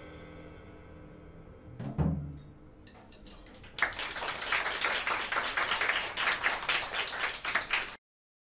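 Final chord of a jazz quartet ringing out and fading, with a low thump about two seconds in. A few scattered claps then grow into audience applause, which cuts off abruptly near the end.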